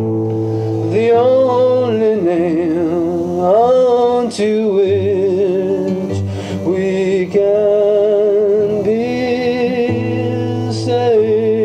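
Gospel-country song: a voice sings long held notes with a wavering vibrato, sliding between pitches, over a steady low accompaniment.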